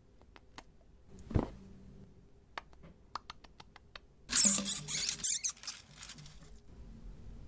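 Scratchy rodent-like scrabbling and rustling, with scattered light clicks and taps, a single thump about a second and a half in, and a loud scratchy rustle lasting about a second, a little past halfway.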